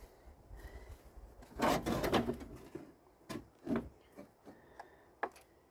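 Handling noise as parts are worked by hand: a brief rustle and scrape about one and a half seconds in, then several light knocks and clicks.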